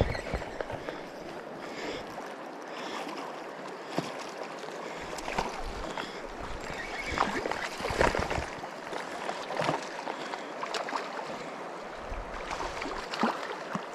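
Shallow river running over stones close to the microphone, with scattered knocks and clicks of handling.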